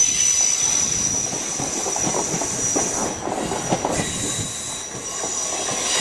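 Passenger train moving through the station, its wheels giving a steady high-pitched squeal over a low rumble and clatter; the squeal dips around the middle and comes back near the end.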